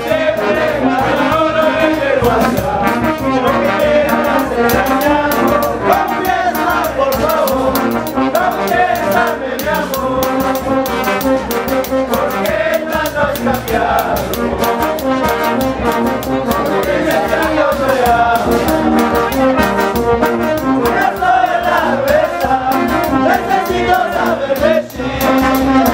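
Brass band playing a dance tune: saxophones, trombones, trumpets and a sousaphone over a steady cymbal beat.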